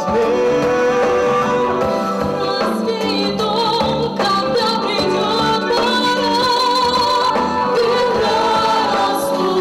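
Live stage performance of a retro pop song: singing with instrumental accompaniment, at times several voices together.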